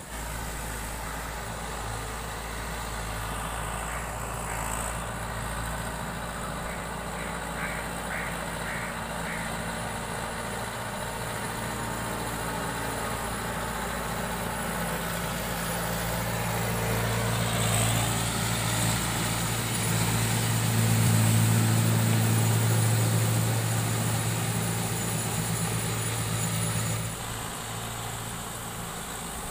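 Mahindra YUVO 575 DI tractor's four-cylinder diesel engine running steadily under load as the tractor works a flooded paddy field. The engine grows louder over the second half as the tractor comes nearer, then drops back a few seconds before the end.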